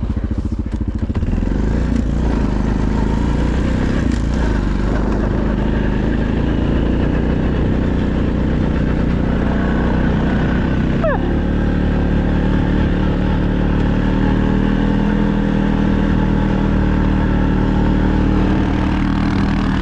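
Off-road vehicle engine running steadily as it drives through snow; its note shifts to a lower, steadier hum about halfway through.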